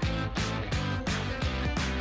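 Background music with a steady beat and guitar.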